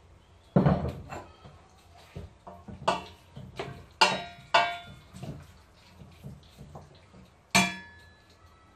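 Stainless-steel cooking pot set down on the counter, then a wooden spoon knocking and scraping in it while serving: a series of sharp clanks with a brief metallic ring. The loudest come just over half a second in, at about four seconds, and about a second before the end.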